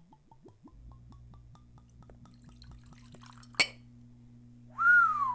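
Bourbon glugging out of the neck of a corked bottle into a small glass, a quick run of soft gurgles, about six a second, that fades away. A sharp glass clink about three and a half seconds in, and near the end a loud short tone that lifts briefly and then falls.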